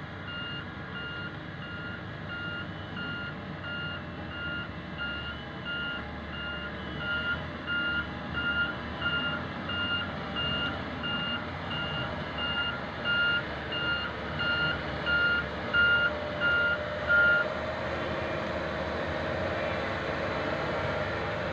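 Reversing alarm on a diesel earthmoving machine, beeping about twice a second and growing louder, over the engine's steady running; the beeping stops about three-quarters of the way through while the engine runs on.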